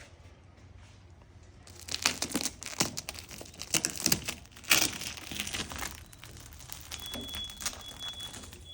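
Protective plastic film being peeled off a new LED taillight lens, crackling and crinkling for several seconds. It starts about two seconds in and dies away after about six seconds.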